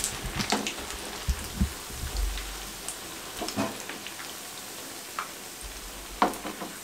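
Hot frying oil in a pan sizzling, with scattered crackles and pops, slowly dying down as the flame has just been turned off.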